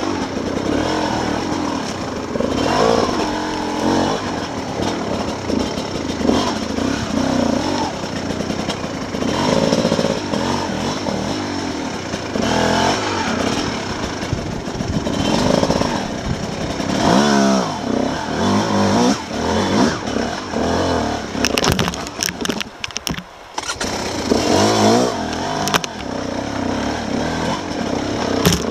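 Dirt bike engine revving up and down under load on a steep, rocky trail, the pitch repeatedly rising and falling with throttle. About three quarters of the way in the engine briefly drops off and a few sharp knocks are heard.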